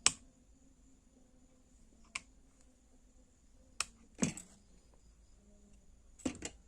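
A handful of separate sharp clicks and light knocks from things being handled on a workbench, the loudest right at the start, over a faint steady hum.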